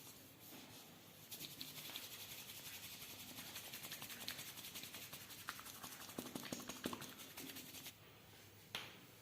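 Massage hands rubbing fast against skin, a quick even run of soft scratchy strokes that starts about a second in and stops near the end. A few sharper clicks come in the later part, and a single click comes just before the end.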